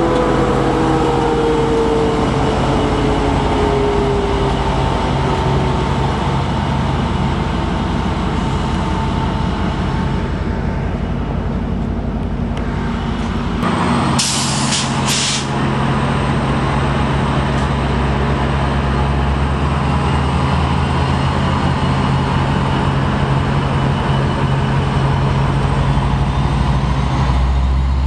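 Diesel engine of an Amtrak Pacific Surfliner EMD F59PHI locomotive running with a steady low drone, part of its sound sinking in pitch over the first few seconds. About halfway through come three short sharp hisses of released air from the train's air brakes.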